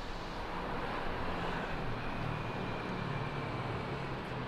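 Steady rumble of city traffic, with a low engine drone wavering in pitch and no distinct single event.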